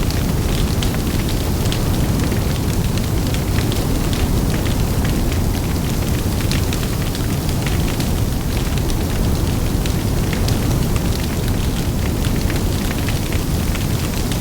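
Large bonfire burning, with a steady low rumble of flames and wind under frequent sharp crackles and pops of burning wood.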